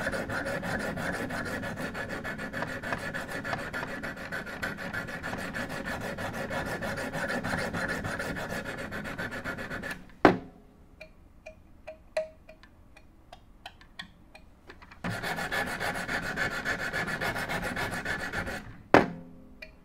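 Sharpening stones on a Wicked Edge guided knife sharpener scrubbing steadily up and down a clamped knife blade, working the edge to raise a burr. About halfway through the scrubbing stops with a sharp click, leaving a few seconds of light taps. It resumes for about three seconds and ends with another sharp click near the end.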